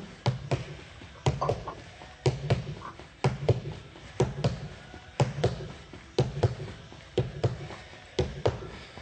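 Feet stepping up onto and down off a low step or stool in quick step-ups. Each cycle gives a pair of thuds and taps, about one pair a second, in an even rhythm.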